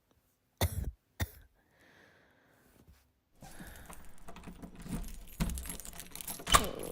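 Two thumps, then a set of keys jangling and rattling at a door lock, the spare key being used to get in, with a sharp click near the end.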